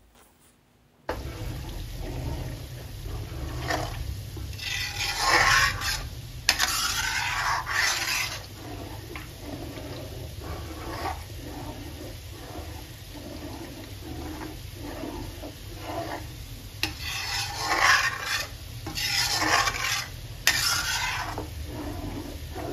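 Metal spatula stirring and scraping melting butter around a kadhai as it bubbles and cooks down into desi ghee. The stirring starts about a second in, with two spells of louder scraping against the pan and a few sharp clinks of metal on the pan.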